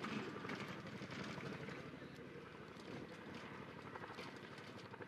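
Chinook tandem-rotor helicopter flying, its rotors making a fast, even, faint beat.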